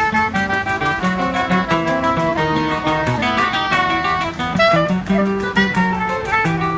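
Choro played by a trio: clarinet carrying a moving melody over acoustic guitar (violão) bass runs and chords, with pandeiro jingles keeping a fast, steady beat.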